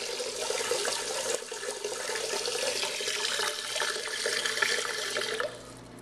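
1990 Kohler Wellworth Lite toilet tank refilling, water running steadily into the tank until the fill valve shuts off and the rush stops abruptly about five and a half seconds in.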